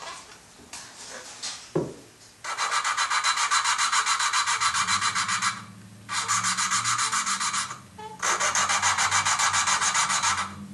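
Valve being lapped into its seat in a Volvo 2.4T five-cylinder head with valve grinding compound, twisted back and forth on a suction-cup lapping stick: a gritty grinding that pulses about five times a second, in three spells with short pauses. The gritty sound is the compound still cutting, before the valve face and seat are lapped smooth.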